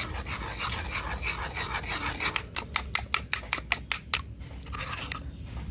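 Metal spoon scraping round a bowl and then rapidly clinking against its side while whisking egg and cornflour into a batter. About two seconds in, the scraping gives way to quick taps, about six a second, for nearly two seconds.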